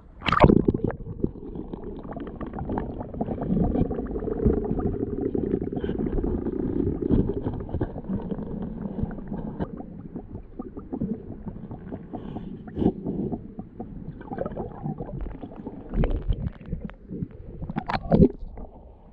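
Muffled underwater sound of water sloshing and gurgling around a submerged action camera, a low rumble, with sharp splashes about half a second in and again near the end as the camera breaks the surface.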